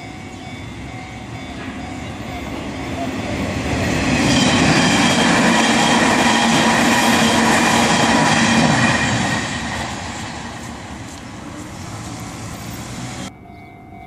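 A Hanshin Electric Railway train passing over a level crossing, building up over the first few seconds, loudest from about four to nine seconds in, then fading, while the crossing's warning bells ring steadily throughout. The train noise cuts off abruptly about a second before the end, leaving the bells.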